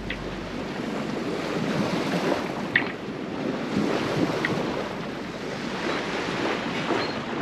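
Sea water rushing and lapping along the hull of a sailing yacht moving through calm water, with wind buffeting the microphone.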